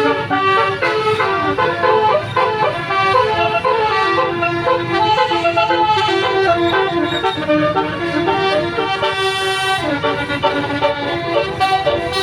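A bus's Basuri 'telolet' multi-tone air horn playing a melody, its notes stepping up and down several times a second, over engine rumble.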